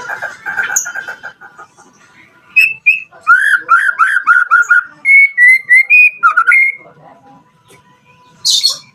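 White-rumped shama (murai batu) singing: a rattling phrase at the start, then a fast run of about eight upswept whistled notes, a few longer clear whistles, and a short high note near the end.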